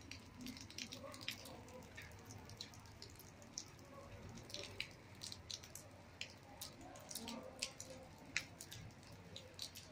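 Light rain falling on a wet concrete rooftop, faint, with irregular drops and drips tapping several times a second.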